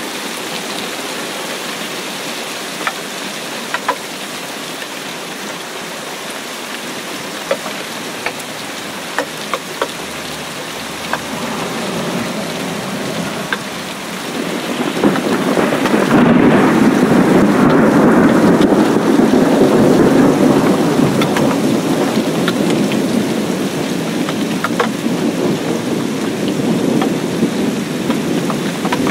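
Rain falling on a shallow puddle over grass, with single close drops plinking now and then. About halfway through, a long low rumble of thunder swells up and fades away over several seconds.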